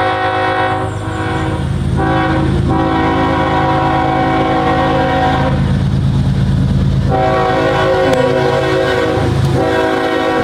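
A passing train's horn sounding in long, loud blasts, three of them, the first already under way and the others starting about two seconds and about seven seconds in. Beneath the horn is the steady rumble of the train going by without slowing.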